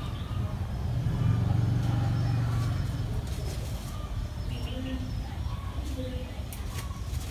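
A low engine drone swells about a second in and fades away over the next few seconds, with scattered faint bird chirps.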